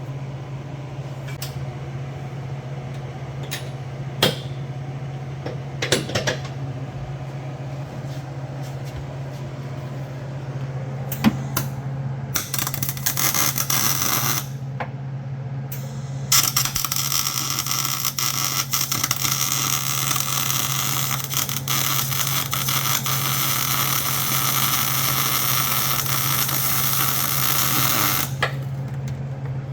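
Welding arc crackling and hissing on a car's sub-frame connector: a short bead about twelve seconds in, then a long continuous one of about twelve seconds. A steady low hum runs underneath, with a few sharp clicks before the welding starts.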